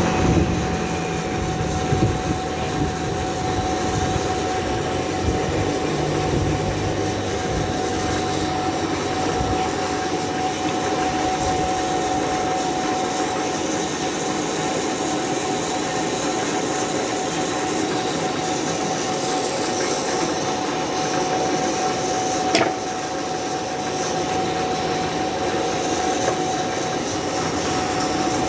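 Powered sawmill saw running steadily while ripping a log lengthwise, a constant whine over mechanical noise, with one sharp knock about twenty-two seconds in.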